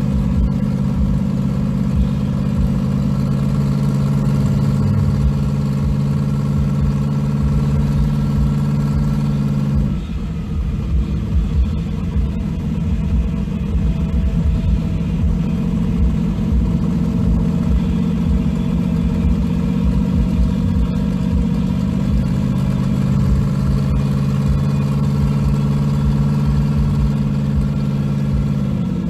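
Engine of a 1500-horsepower Chevy S10 street truck running at a steady cruise, heard from inside the cab. About ten seconds in its note drops and goes rougher, then settles back into a steady drone.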